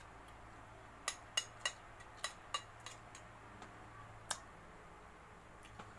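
A metal spoon clinking against a plate while eating: about six short, sharp clinks, most in the first half and one more a little later.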